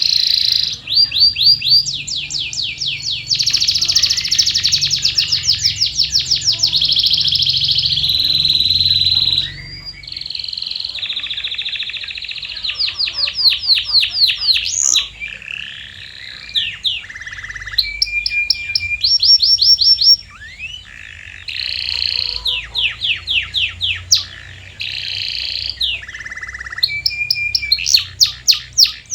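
Domestic canary singing a long song of trilled phrases, each a fast run of repeated notes, changing from one phrase to the next with short breaks and a few held whistled notes.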